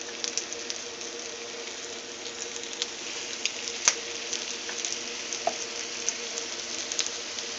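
Flour-breaded squirrel meat frying in a thin coat of hot vegetable oil in a nonstick pan: a steady sizzle with frequent small pops and crackles.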